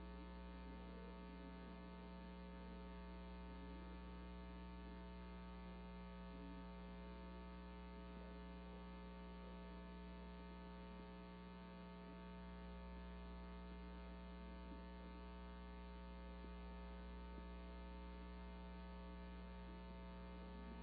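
Faint, steady electrical hum with a stack of even overtones, unchanging throughout.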